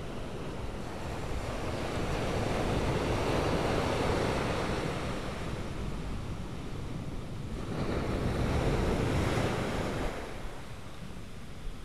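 Sea surf washing onto a beach, swelling and fading twice, with some wind on the microphone.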